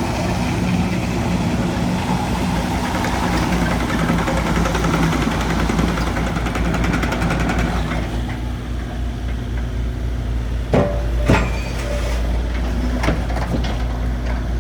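Kubota U50-5 mini excavator's diesel engine running steadily; the sound is fuller and busier for the first eight seconds or so, then settles to a plainer low run. Two sharp knocks come close together about eleven seconds in.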